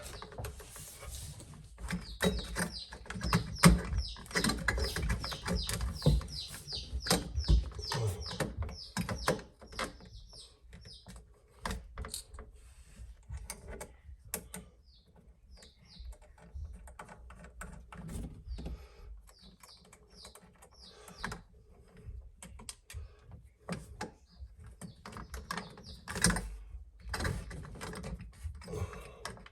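Screwdriver turning an electrical outlet's mounting screws into the wall box: a quick run of short clicking strokes, about three a second, for several seconds, then scattered clicks and taps as the outlet and its wires are handled.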